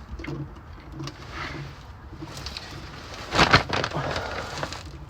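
A pigeon cooing in a run of short low hoots. About three and a half seconds in comes a loud clatter of handling noise.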